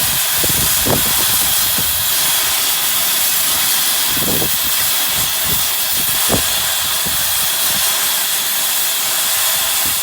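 A loud, steady hiss with a few dull low knocks.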